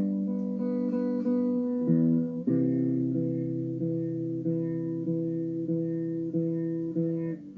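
Acoustic guitar playing the slow instrumental intro of a ballad, with a new note or chord about every half second.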